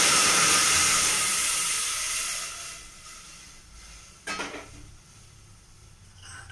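Water poured into a hot aluminium pressure cooker with ghee hissing and sizzling loudly as it turns to steam, the hiss dying away over about three seconds as the pot cools. A short knock about four seconds in.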